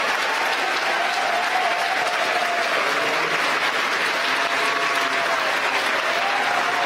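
Large crowd applauding and cheering steadily, celebrating the Falcon 9 first stage's successful landing.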